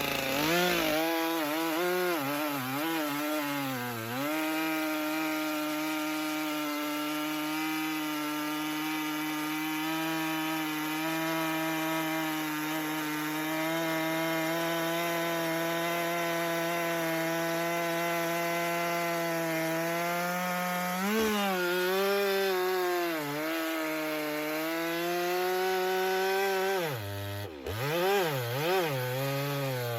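Stihl MS 462 two-stroke chainsaw bucking a big log round, held at high revs under load for long steady stretches. Its pitch wavers as the cut starts, shifts a couple of times about two-thirds through, and briefly drops near the end as the load changes.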